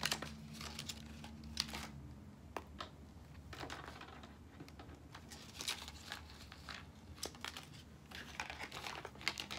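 Plastic blister packs of decorative tape rolls being handled and opened: crinkling plastic, with scattered light clicks and taps on the wooden table.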